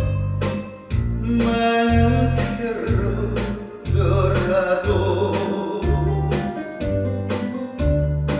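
A song sung by a group of singers over an instrumental accompaniment, with a heavy bass note about once a second.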